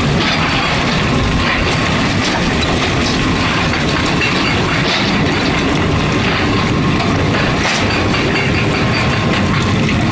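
Excavator-mounted hydraulic breaker hammering, a loud, steady clatter over the diesel engine.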